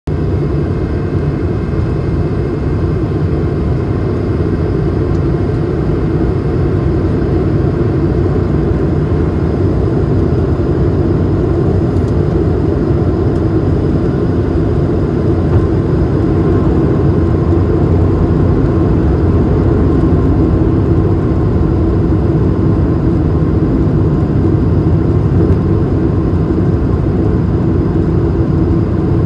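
Inside the cabin of an Airbus A220 airliner in flight during the descent: a steady, loud rush of airflow and engine noise, heavy in low pitches, growing slightly louder about halfway through.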